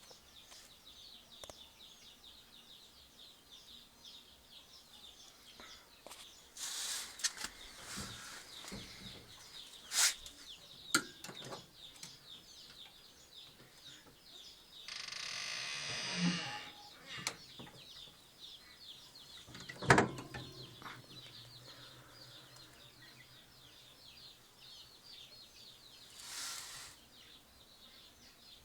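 Constant dense high-pitched chirping of small birds, with a few sharp knocks and a short rustling noise about halfway through.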